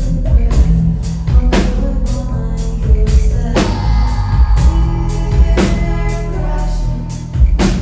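Rock band playing live in an instrumental passage without vocals: heavy bass and sustained guitar under a drum kit, with big crashing drum hits about every two seconds.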